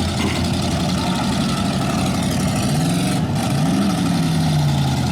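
Engines of stock demolition derby cars running and revving, the pitch rising and falling twice, over a dense steady wash of engine noise.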